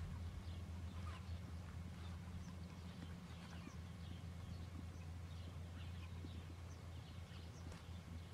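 Horses galloping over soft ploughed ground, their hoofbeats faint under a steady low rumble, with many short high chirps throughout.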